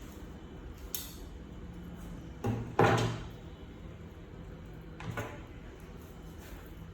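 A few knocks and thumps: a light click about a second in, a loud double thump around three seconds in, and a weaker one about five seconds in.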